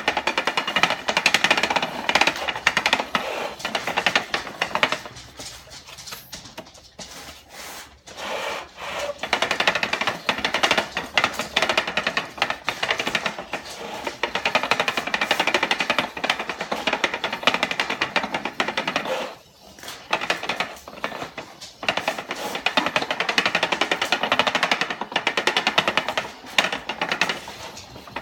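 Plastic hand-cranked slime-mixing spinner being turned, its gears giving a fast, continuous rattling clatter. It eases off for a few seconds after about five seconds and stops briefly about two-thirds of the way through.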